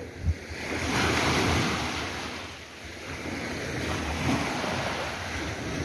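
Sea waves breaking and washing on the shore: a surge swells about a second in, eases off, then builds again. Wind rumbles on the microphone, with one short low knock at the very start.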